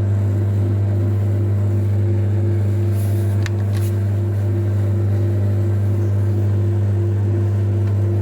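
Metal lathe running steadily with a low motor hum, turning a diesel piston as a form tool machines out its combustion bowl. Two brief scratchy sounds come about three and a half seconds in.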